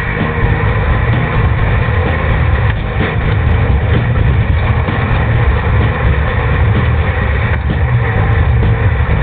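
Off-road race vehicle's engine running: a loud, steady drone with no clear revving or pauses.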